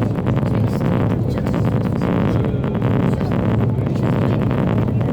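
Meteor hydrofoil under way: a steady, loud drone of its diesel engines and hull, with wind buffeting the microphone.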